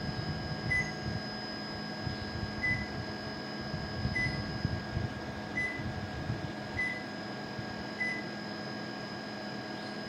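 Panasonic CS-PC5MKJ split air conditioner's indoor unit giving six short single-pitch beeps, each one acknowledging a command from its remote control, over the steady hum and airflow of the running unit.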